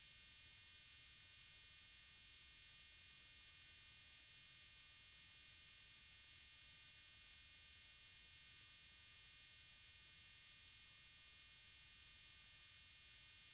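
Near silence: a faint, steady hiss and electronic hum.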